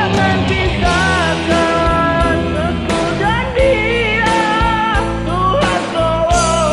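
Music with band accompaniment: a melody line with vibrato over sustained bass and guitar.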